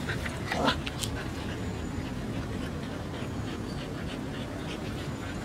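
Sheepadoodle and Doberman pinscher puppy play-fighting: scuffling and mouthing with many short clicks and scrapes, and one brief dog vocalisation about half a second in.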